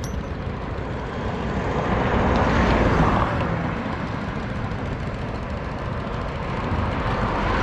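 Road traffic: a continuous rumbling rush that swells and fades about three seconds in, then rises again near the end, as vehicles pass.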